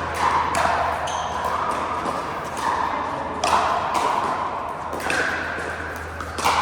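Pickleball paddles hitting the ball: about four sharp pops at irregular spacing, each with a short ringing tail, over a steady low hum.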